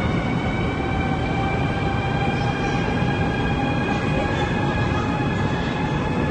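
High-speed electric train at a station platform: a steady rumble with a multi-tone electric whine that falls slowly in pitch.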